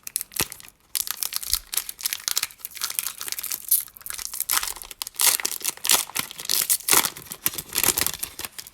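Foil Pokémon booster pack wrapper being torn open and crinkled in the hands: a dense, continuous crackling with many sharp crinkles, starting about a second in.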